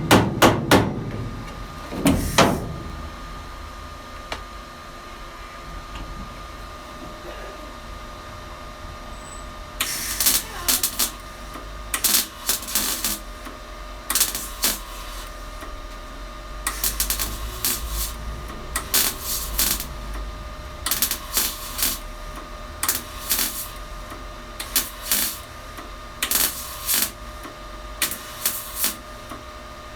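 Welder laying short tack or stitch welds on the steel body panels of a classic Mini, each weld a crackling burst of about a second, repeated every second or two from about ten seconds in. A few hammer blows on metal in the first couple of seconds.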